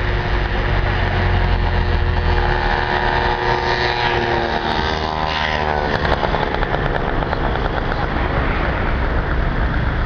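A motor vehicle passing by: a steady low engine rumble, with an engine tone that swells from about two and a half seconds in and drops in pitch as it goes past around five to six seconds in.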